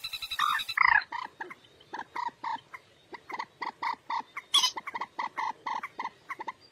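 Common moorhen calling: a few loud, harsh downward-sliding calls, then a steady run of short clucking notes, about four a second.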